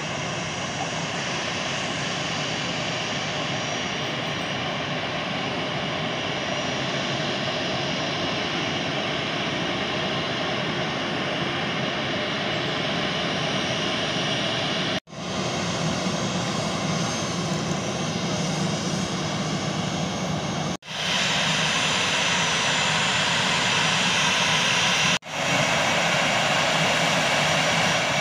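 Turbofan engines of an Airbus A320-family airliner running at taxi power: a steady jet whine over a rumble. The sound cuts off abruptly three times, about halfway through, about three-quarters through and near the end, and comes back louder and brighter after the later cuts.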